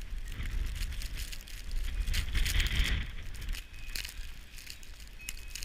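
Wind rumbling and buffeting on the microphone, swelling about two seconds in, with scattered crackles and clicks.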